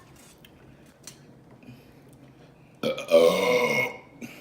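A woman burping once, a long, loud burp of about a second, near the end.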